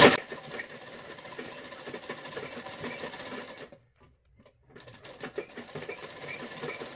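Sewing machine running, its needle clattering in a fast even rhythm as it stitches a sleeve to its lining along a curved seam. It stops for about a second while the fabric is turned, then runs on.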